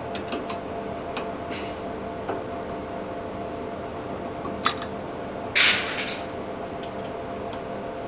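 Steady hum of the running air-conditioning unit, with a few light metallic clicks of a hex key on the brass service valves and a brief louder noise about five and a half seconds in.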